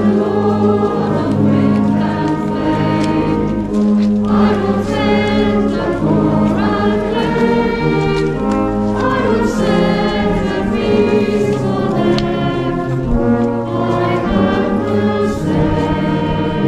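A hymn sung by a gathered congregation, accompanied by a brass band playing sustained chords that change every second or two under the voices.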